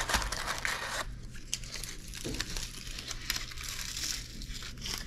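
Crinkling and crackling of egg tarts being handled and bitten into, with paper packaging and flaky pastry rustling and crunching, loudest in the first second.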